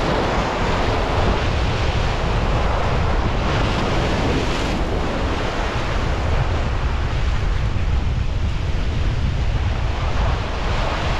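Sea surf washing and breaking over a rock ledge in a steady rush, with a louder wash about four seconds in, and wind buffeting the microphone.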